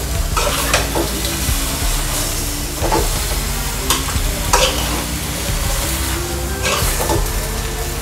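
Metal spoon stirring chopped Malabar spinach leaves through the spices in an aluminium pot, with irregular scrapes against the pan about once a second over a steady sizzle of frying.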